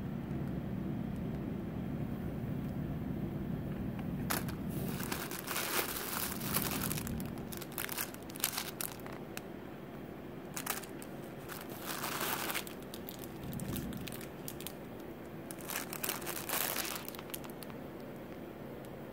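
Clear plastic bags and carded jewelry crinkling and rustling as they are handled and shuffled in a cardboard box, in irregular bursts. A low hum sits underneath during the first several seconds.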